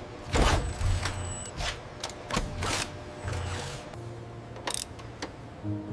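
Background music mixed with irregular mechanical clicks and clanks over a low hum.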